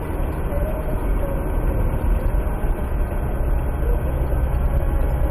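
Steady engine and tyre noise inside a car's cabin while it drives at road speed, with a faint wavering whine.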